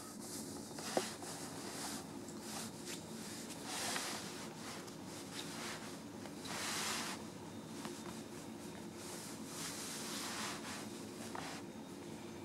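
Bed sheets rustling in short soft scuffles as a kitten pounces and a hand moves across the bedding, with one sharp tap about a second in. A faint steady hum lies underneath.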